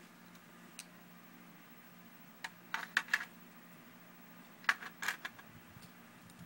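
Sharp metallic clicks and clacks of D-cell batteries being handled and fitted into the tin grip of a vintage Cragstan space gun, with its battery cap: a small tick about a second in, then two quick clusters of taps, around the middle and a couple of seconds later.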